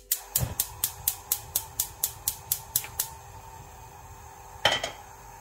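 Gas hob's spark igniter clicking rapidly, about four clicks a second for some three seconds, then stopping as the burner lights. Near the end a stainless steel saucepan is set down on the cast-iron pan support with a short metallic clatter.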